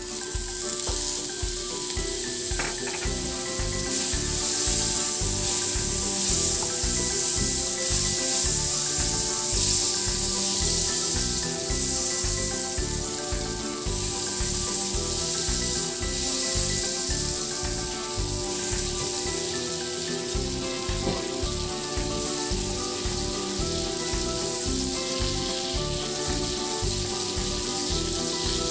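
Butter sizzling as it melts in a hot nonstick wok, starting the moment it drops in and going on steadily while it is stirred around with a wooden spatula. Background music with a steady beat plays underneath.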